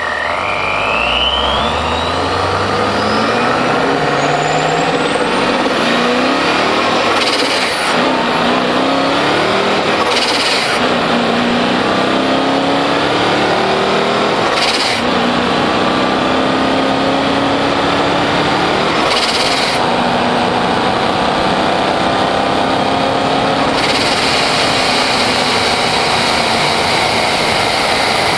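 Supercharged BMW E38 740iL's V8 accelerating hard through the gears of its six-speed manual. The engine note climbs, then drops at each of several upshifts, and a thin supercharger whine rises with the revs at the start. Tyre and wind rush run underneath and grow heavier near the end.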